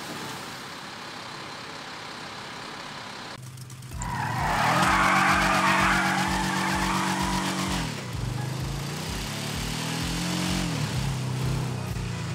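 A motor vehicle's engine running on a steep track. For the first few seconds there is only a steady noisy rush. About four seconds in the engine comes in loud and steady. It climbs in pitch and drops again near the end, with a regular low thump about twice a second underneath.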